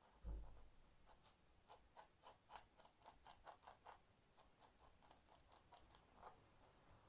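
Faint scratching of a dip pen's metal nib on paper, a run of short quick strokes, three or four a second, after a soft thump near the start.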